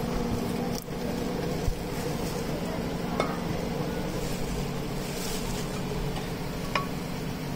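A steady low mechanical hum, with a few short sharp clicks spread through it.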